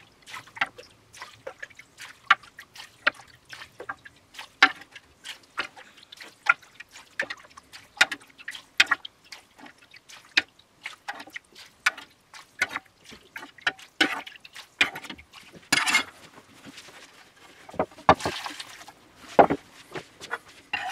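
A metal ladle scooping braising liquid and vegetable chunks from a roasting pan and pouring them into a wire-mesh sieve over a bowl: repeated clinks and splashes, one or two a second, with a few longer pouring splashes in the second half.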